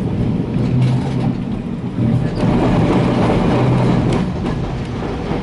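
W8-class tram running along the track, heard from on board: a steady rumble of wheels on rails with scattered clicks and knocks, growing louder for a couple of seconds midway.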